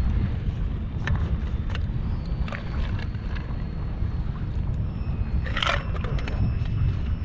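Wind buffeting the microphone on a kayak as a steady low rumble, with scattered small ticks and one louder brief rush of noise about five and a half seconds in.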